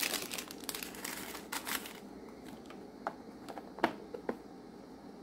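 Small plastic bags crinkling as they are handled for about two seconds, then a few light taps and clicks as a box lid is fitted, the sharpest about four seconds in.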